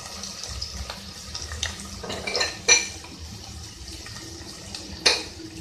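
Sliced almonds, cashews and pistachios frying in ghee with a low, steady sizzle. A few ringing metal clinks of utensils come about two and a half seconds in and once more near the end.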